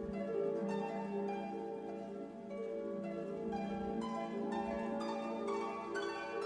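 Background music: a gentle piece with plucked, harp-like notes over sustained tones.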